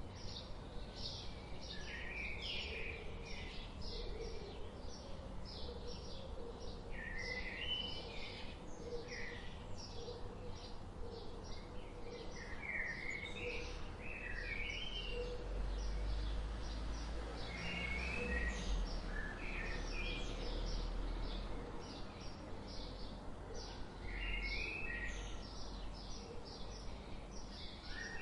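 Several birds singing: a steady stream of short, high chirps, with a warbling phrase that comes back every few seconds. A low rumble runs underneath, growing louder in the middle.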